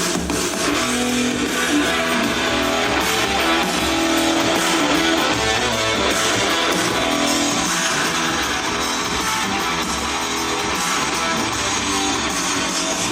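Guitar music playing through a Mifa WildBox 60 W portable Bluetooth speaker as a sound test, steady and loud.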